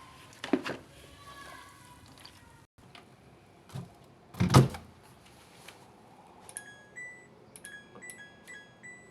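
Two clunks, then a run of short electronic two-pitch beeps from a Ramtons RW/147 washing machine's control panel, as when its buttons are pressed or a program is selected.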